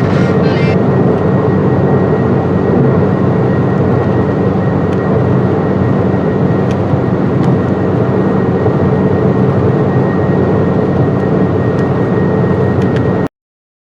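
Loud, steady rushing noise on the radio feed, heaviest in the low range, with a faint steady high tone running through it. It cuts off abruptly to silence near the end.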